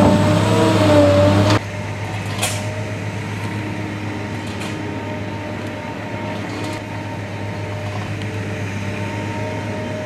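Caterpillar wheeled excavator's diesel engine and hydraulics running under load, with a wavering whine, cutting off abruptly about a second and a half in. After that a quieter steady hum with a few faint clicks.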